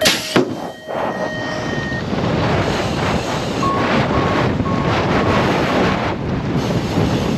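Strong wind buffeting the microphone, with a few faint short beeps about four to five seconds in.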